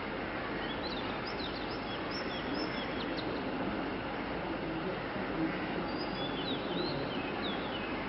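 Small birds chirping in short, quick high calls, in two spells about a second and about six seconds in, over a steady background hum.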